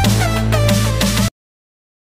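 Electronic music with a deep, steady bass and falling synth glides, cut off suddenly a little over a second in, leaving dead silence.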